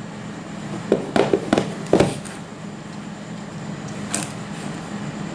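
A cardboard smartphone box handled and set down on a wooden tabletop: several short knocks and taps, the loudest about two seconds in, and a sharper tick near four seconds.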